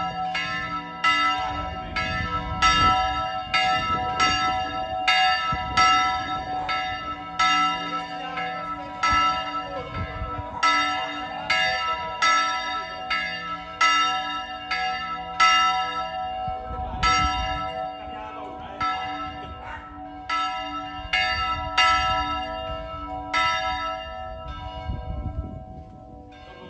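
Full peal of three swinging church bells, probably cast by the Mari foundry, their clappers striking in quick overlapping succession at about two strokes a second. Over the last few seconds the strokes thin out and fade as the bells slow down.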